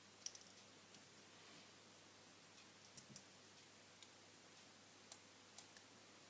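Faint, scattered clicks and ticks, about eight in six seconds with the loudest just after the start: small tools and plastic or metal parts of a smartphone handled during disassembly.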